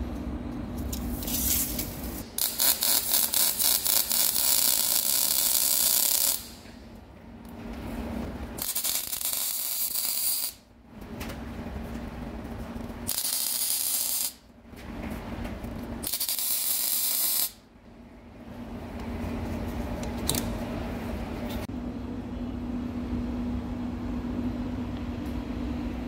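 Metal-core wire welding: the arc crackles and hisses in four runs of one to four seconds, each cutting off abruptly, the first the longest, while the head flange is welded onto a new hydraulic cylinder barrel. A steady machine hum runs under it and carries on after the last run.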